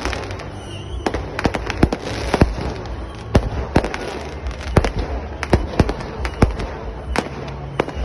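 Fireworks going off: many sharp bangs and pops at irregular intervals, with a continuous low rumble underneath.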